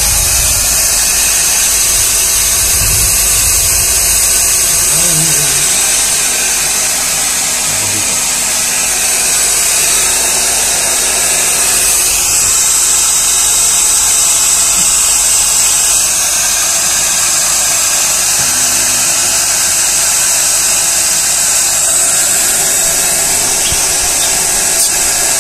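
Hair dryer running steadily, a loud even hiss of blown air.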